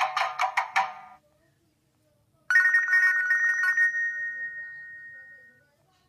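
Nokia 6700 Classic ringtones played through a Nokia 7100 Supernova's loudspeaker. A melodic tone ends about a second in. After a short pause another starts abruptly, with a quick run of notes settling into a high sustained ring that fades out over about three seconds.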